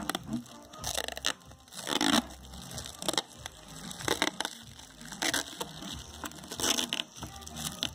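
Clear protective plastic film being peeled slowly off a tinted tail-light lens, crinkling and crackling in irregular bursts as it comes away, loudest about two seconds in.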